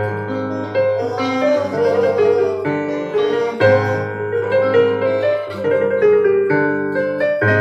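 Instrumental break in a live raï song: an electric keyboard plays the melody over held bass notes and chords, with no singing. The bass and chords change every couple of seconds.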